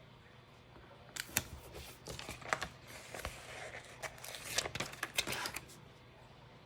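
Planner sticker sheets and paper being handled: crinkling and rustling with sharp ticks, starting about a second in and stopping shortly before the end.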